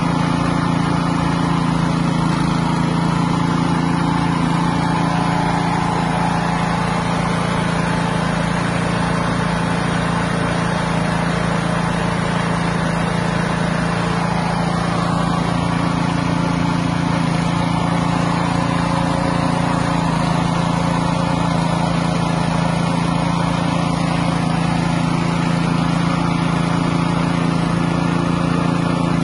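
Small engine running steadily at a constant speed, driving a floating fish-feed pellet extruder while it turns out pellets.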